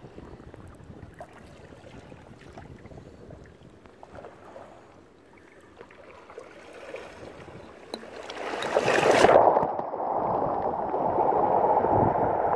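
Sea water washing over shoreline rocks: quiet lapping with faint clicks at first, then about eight seconds in a wave surges in, loudest about a second later, and settles into a steady rush of water.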